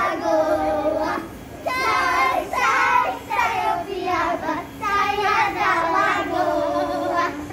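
A group of young children singing a children's song together, with long held notes.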